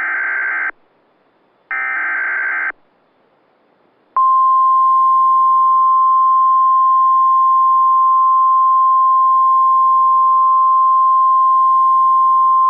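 Weather radio alert signal: two short buzzy bursts of SAME digital header tones about a second apart, then, about four seconds in, a steady single-pitch 1050 Hz warning alarm tone that holds, announcing a new severe thunderstorm warning.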